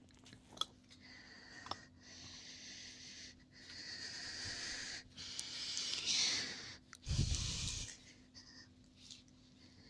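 Heavy, airy breaths close to the microphone, several drawn-out swells one after another, then a short low thud of air or contact on the microphone about seven seconds in. A few small clicks and a faint steady hum lie underneath.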